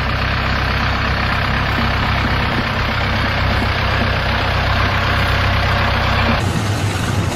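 Heavy machine engine running steadily, with an abrupt change in the sound about six and a half seconds in.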